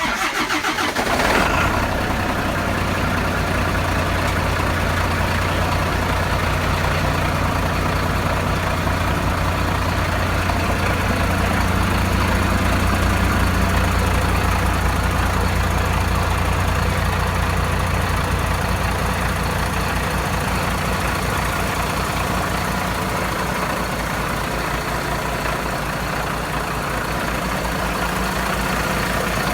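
IVECO Stralis truck's Cursor 10 straight-six diesel cold-starting: it fires at once, runs up briefly about a second in, then settles into a steady idle.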